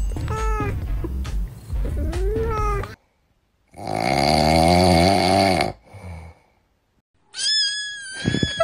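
Cat sound clips cut together: cats meowing, with a low beat under the first three seconds. About three seconds in it cuts off suddenly, then comes one long, loud call and a short, high meow near the end.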